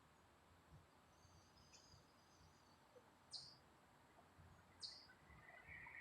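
Faint bird calls: a short, high chirp sweeping downward, repeated about every second and a half, with faint high twittering about a second in.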